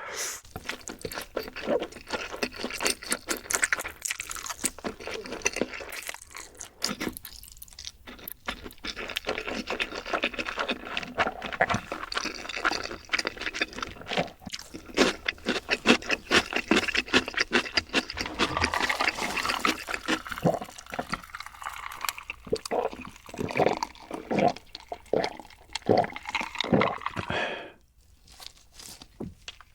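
Close-miked eating sounds: wet chewing and slurping with crunchy clicks. In the last several seconds the chewing falls into a steady rhythm of about two or three strokes a second, then stops suddenly.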